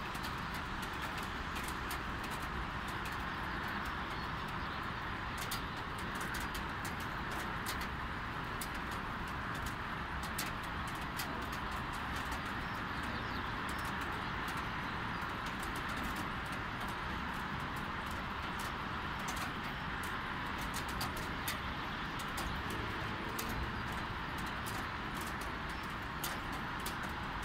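Light rain falling steadily, a continuous wash with scattered drops ticking sharply close by, over the low hum of distant traffic.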